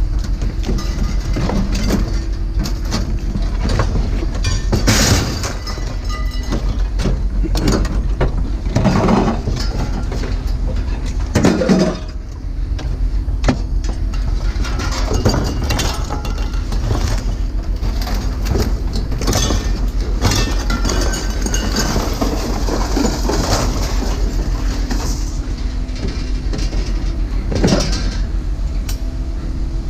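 Scrap metal rattling and clanking again and again over a steady low rumble.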